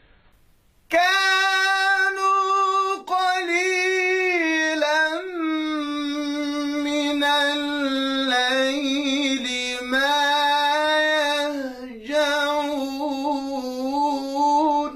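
A man's voice reciting the Quran unaccompanied, in the melodic chanted style of tajweed. It comes in about a second in with one long drawn-out phrase that sinks slowly in pitch, with a short break near the end.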